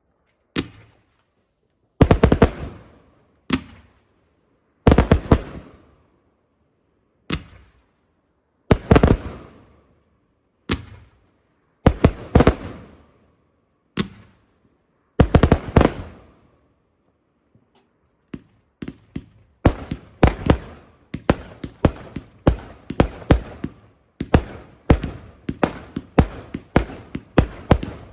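Fireworks display: loud bangs of bursting shells with echoing tails, single or in quick clusters every second or two. About two-thirds of the way through they turn into a faster barrage of bangs, two or three a second.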